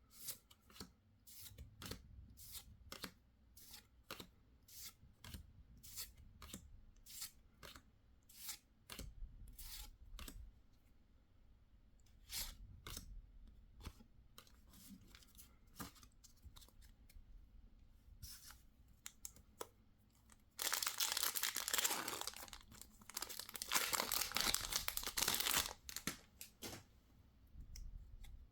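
Packaging from a Pokémon trading card collection being handled: a run of light clicks and rustles, then, about twenty seconds in, some five seconds of loud tearing and crinkling as a wrapper is torn open, with a short break midway.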